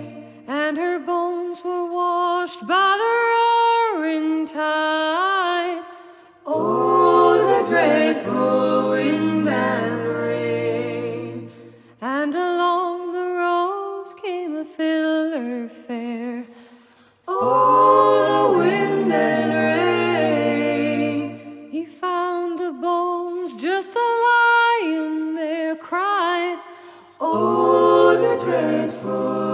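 Unaccompanied vocal music: several voices singing together in harmony, in phrases of about five seconds separated by brief dips.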